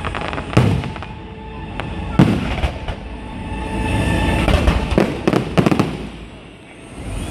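Fireworks display: single sharp bangs about half a second and two seconds in, then a rapid run of bangs and crackling around five seconds in, dying down near the end.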